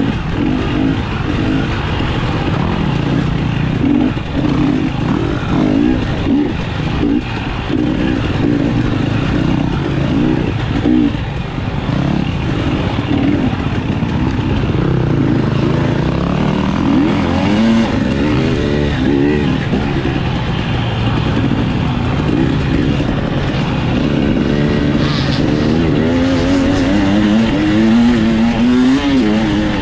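Dirt bike engine heard close up on board, revving up and down as the throttle is worked over rough trail. In the last few seconds the pitch rises again and again as it accelerates along a straighter stretch.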